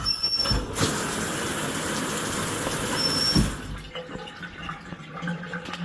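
Delta Monitor 1500 series shower valve handle giving a short high-pitched squeal as it is turned on, water rushing from the shower for about three seconds, then a second squeal as the handle is turned off. The owner blames the screech on the metal piece on the back of the worn 1995 cartridge rubbing against a misshapen rubber O-ring.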